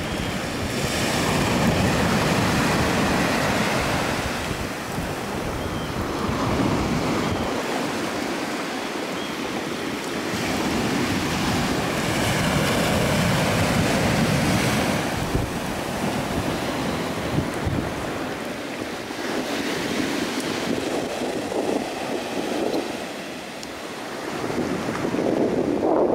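Ocean surf breaking and washing up a beach, swelling and falling back every several seconds, with wind rumbling on the microphone at times.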